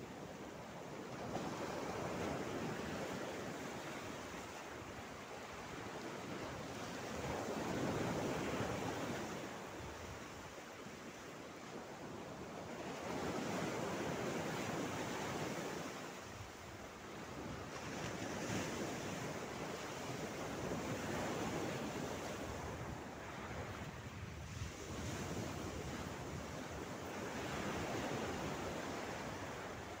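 Small sea waves washing in over a shallow pebble-and-rock shore, the wash swelling and fading every few seconds.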